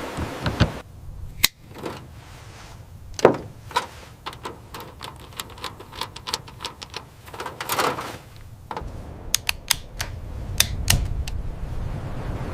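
An irregular series of sharp knocks and clicks, several a second at times, with a low steady rumble setting in about nine seconds in.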